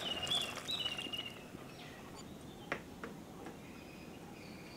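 Birds chirping, with short high chirps in the first second or so and faint thin whistled notes near the end. Two sharp taps come close together about midway.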